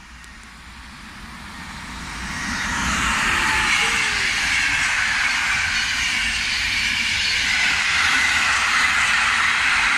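PKP Intercity EU160 (Newag Griffin) electric locomotive and its passenger coaches passing at speed: the rush of wheels on rail and moving air builds over the first three seconds, then holds steady and loud as the coaches go by.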